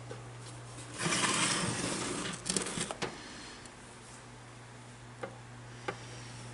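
Handling noise on a workbench: a rustling scrape lasting about a second and a half, then a quick run of small clicks and rattles and a few faint later clicks, over a steady low hum.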